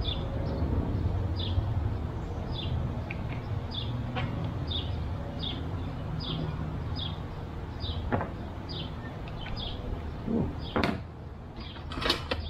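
Screws and clamp of a side-by-side mirror mount being handled and fitted, with a few sharp clicks and knocks near the end. A bird gives a short high chirp over and over, about every half second, over a low steady hum.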